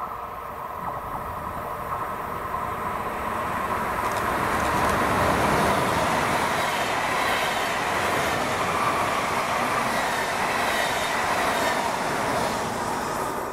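A train passing on the line, its running noise growing louder over the first five seconds and then holding steady, with a faint steady high tone running through it.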